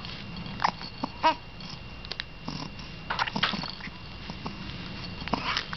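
Baby making short squeaky vocal sounds and gasps, a few at irregular intervals.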